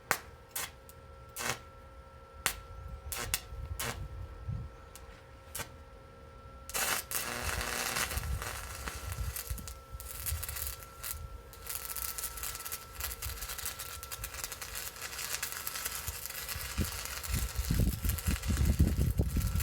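Electric arc welding. First come a series of separate sharp crackling clicks as the arc is struck. From about seven seconds in, the arc holds as a steady crackling sizzle for about ten seconds while a bead is laid, which turns out a good bead. Low rumbling handling noise follows near the end.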